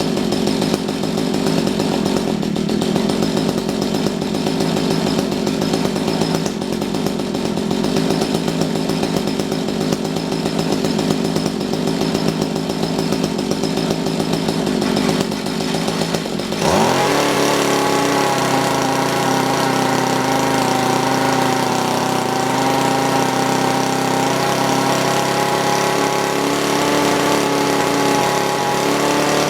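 Mantis tiller's small engine, running on a replacement carburetor that is being tuned for mixture. It runs at a low, uneven speed, then about seventeen seconds in revs sharply up and holds a steady high speed.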